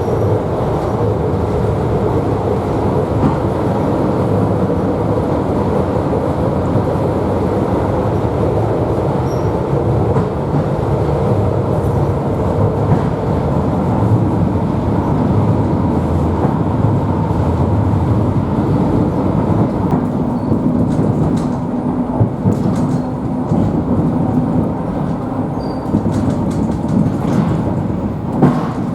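Electric commuter train running, heard from inside the carriage: a steady low rumble of wheels and running gear with a faint steady hum in it.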